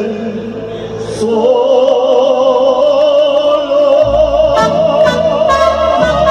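Live mariachi band playing: one long held note with wide vibrato rises a little after a second in and is held, with bass and percussion coming in about four seconds in.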